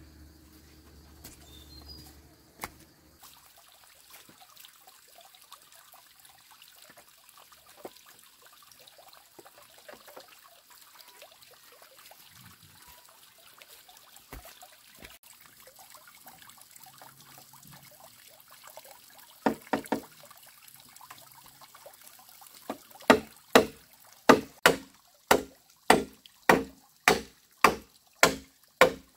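Machete chopping a bamboo pole: a few sharp strikes about two-thirds of the way through, then steady chops at about two a second for the last six seconds, after a long quiet stretch of faint background sound and small knocks.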